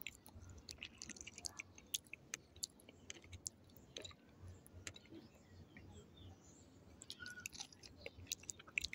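A person bites into a soft, ripe Kadota fig and chews it. The chewing is faint and wet, with many small mouth clicks.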